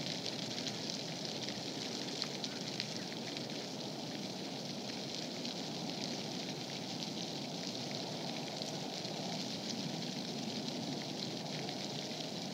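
Steady outdoor background hiss with faint scattered crackling ticks.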